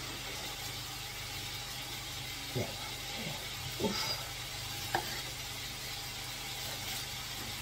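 Chopped onion sizzling steadily as it fries in oil in a pan, with a few brief knocks.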